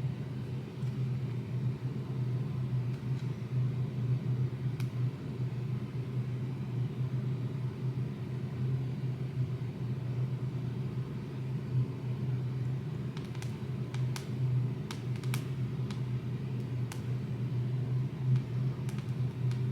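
Steady low mechanical hum with no change in pitch. A handful of sharp clicks or taps come in the second half.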